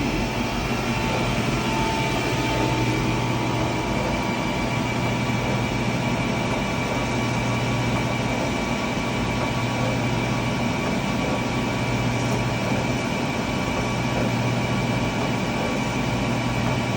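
Blanchard 20-36 rotary surface grinder running, its main grinding-wheel spindle and rotary magnetic chuck turning with the spindle down feed engaged. The machine makes a steady mechanical hum with a few constant whining tones over it.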